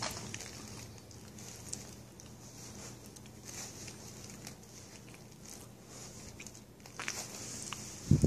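A small pet animal eating banana: soft, quick chewing and smacking with scattered small clicks and pattering. One low thump near the end.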